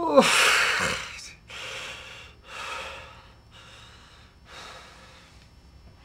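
A man crying: a falling wail of "oh" breaks into a loud gasping sob, followed by shaky sobbing breaths about once a second that grow fainter.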